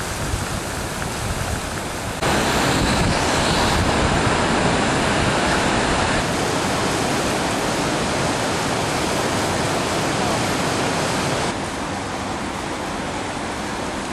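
Rushing floodwater of the swollen Vltava river, a steady, even rush. It jumps suddenly louder about two seconds in and drops back suddenly near the end.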